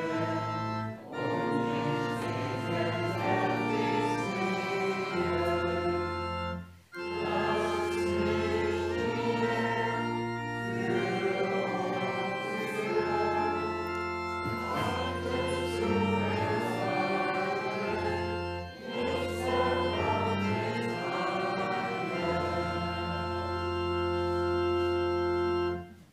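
Pipe organ accompanying a congregation singing a hymn verse, phrase by phrase with short breaths between lines. It ends on a long held final chord that stops suddenly.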